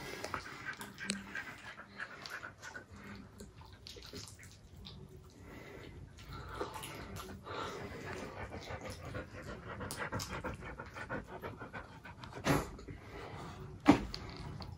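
A dog panting close to the microphone, soft and uneven. Two short bumps near the end.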